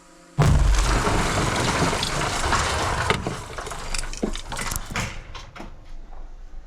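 A large explosion: a munition striking a building. A sudden heavy blast with a deep rumble goes off about half a second in, followed by several seconds of crackling and rattling debris, stones and glass, that slowly die away.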